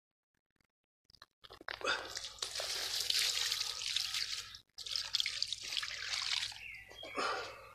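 Water splashing and dripping as a landing net is worked in the shallow margin. It starts after about a second and a half of silence, with a brief break near the middle.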